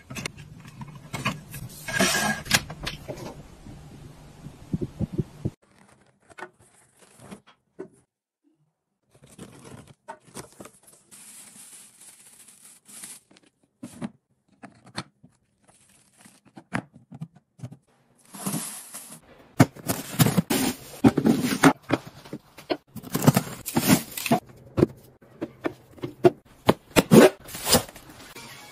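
Objects being handled: a series of clicks, knocks and scraping sounds, with two short breaks of near silence partway through and the busiest, loudest stretch in the second half.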